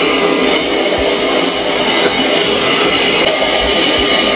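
Jet aircraft engine noise heard in flight: a loud, steady roar with a thin high whine on top.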